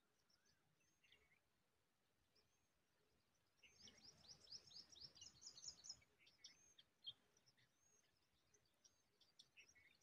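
Faint high, thin bird chirps, scattered single falling notes throughout, with a quick run of rapid falling notes about three and a half seconds in that lasts a couple of seconds.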